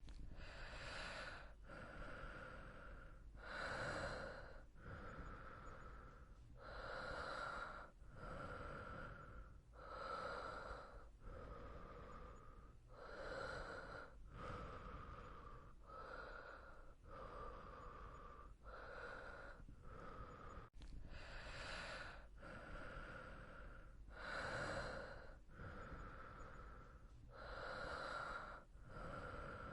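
A person breathing in and out at a slow, steady, even pace, roughly one full breath every three seconds.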